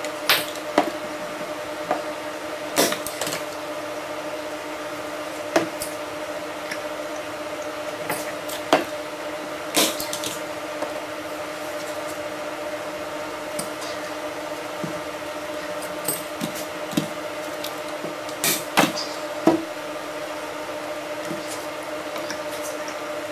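Sharp clicks and knocks at irregular intervals, a dozen or so, from hand work stretching a canvas, over a steady low hum.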